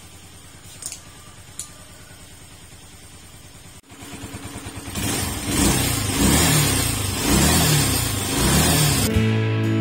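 A motorcycle engine idling with a steady low pulse and a couple of light clicks. After a cut, the engine revs up and down loudly as the bike pulls away. Music comes in near the end.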